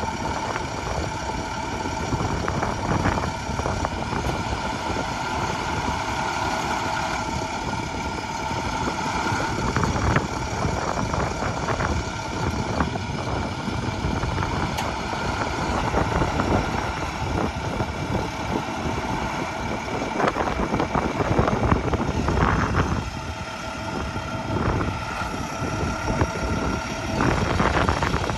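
Truck engine running steadily, with a high, steady whine over the engine noise.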